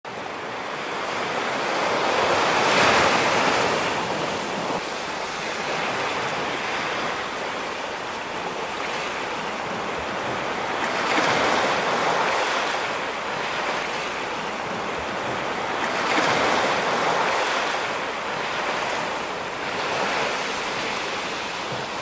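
Small sea waves breaking and washing up a sandy beach, the surf swelling and fading every few seconds, with some wind.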